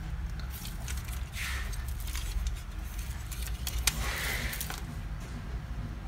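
Handling noise from an HP LaserJet CP1025 laser-printer fuser unit being turned over in the hands: light clicks and scrapes of its plastic and metal parts, with a sharper click about four seconds in, over a steady low hum.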